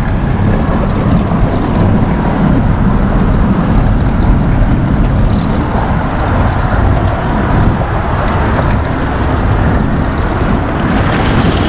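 Loud, steady low rumble and rush of noise on the deck of a charter fishing boat, with no clear rhythm or change.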